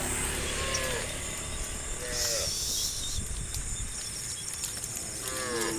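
A herd of cattle being driven outdoors, with a few short calls that fall in pitch: one about half a second in, one around two seconds in and a longer one near the end. Under them runs a steady high insect-like hiss with fine ticking.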